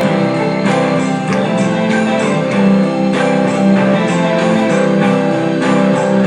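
Music with strummed guitar and a steady beat.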